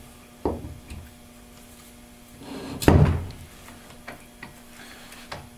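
Turbo 400 center support being worked down onto the planetary gear train by hand, metal on metal: a knock about half a second in, a short rub ending in a loud clunk about three seconds in as it seats, then a few light clicks.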